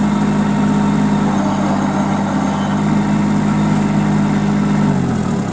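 Kubota B2441 compact tractor's three-cylinder diesel engine running steadily at high revs while the 4WD tractor struggles, stuck in deep mud. Near the end the revs drop.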